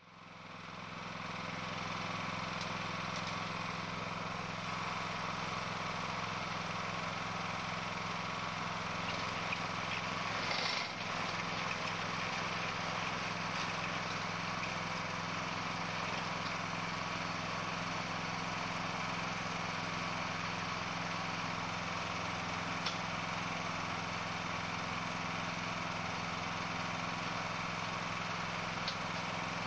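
An engine running steadily at an even speed, with a brief hiss about ten seconds in.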